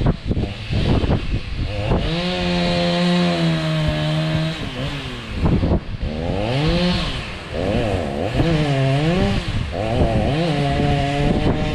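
Gas chainsaw running at high revs, its engine pitch sagging and recovering several times as it loads up cutting into the trunk of a dead pine tree.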